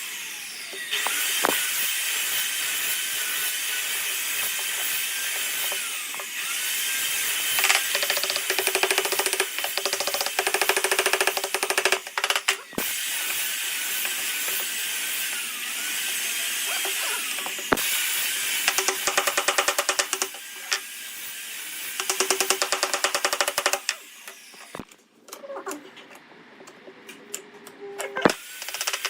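Hand-held power tools working wood: a steady high-pitched grinding hiss with fast rattling stretches, changing abruptly several times.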